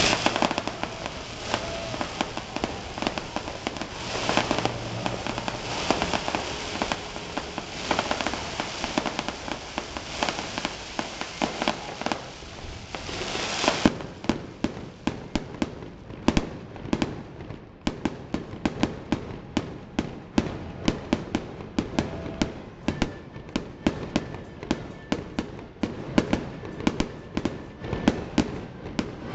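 Fireworks display: a dense, continuous crackle of bursts for about the first half, which then gives way to a rapid, irregular string of separate sharp bangs, several a second.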